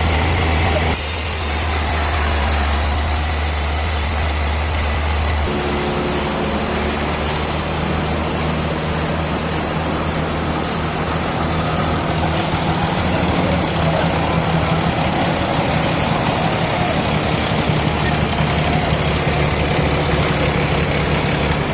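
Sawmill machinery running steadily: an engine-driven saw machine with a low hum and a wide hiss. About five seconds in, the sound changes abruptly to a different steady running sound with a higher drone.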